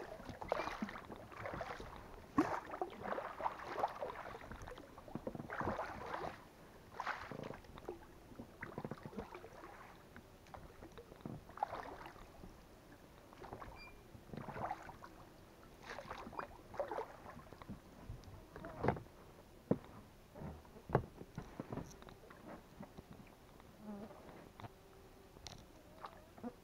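Oars of an inflatable rowboat dipping and splashing in the water, with knocks from the oar shafts. The strokes come unevenly and are busiest in the first several seconds, thinning out later.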